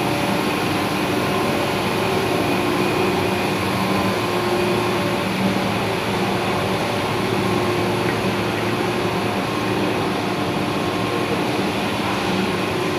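Steady drone of cable production-line machinery running, with several constant hum tones over an even noise.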